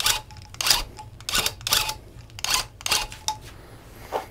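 Electric loop pile tufting gun fired in short bursts, about seven quick buzzes of a fraction of a second each, punching yarn loops into the rug backing.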